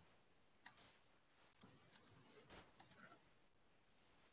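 Near silence broken by a few faint, scattered clicks of a computer mouse, some in quick pairs.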